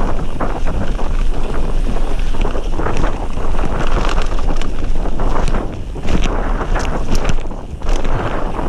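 Wind buffeting the microphone over a mountain bike's tyres rolling on a loose gravel trail, with frequent short rattles and knocks from the bike over stones.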